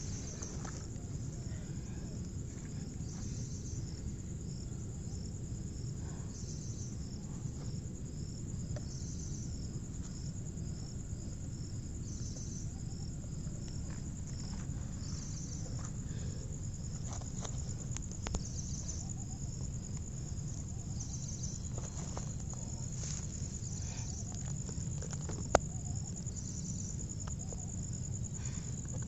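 Insects chirping steadily, a high continuous trill with repeated pulsed chirps, over a low steady rumble. Faint scattered ticks, and one sharp click near the end.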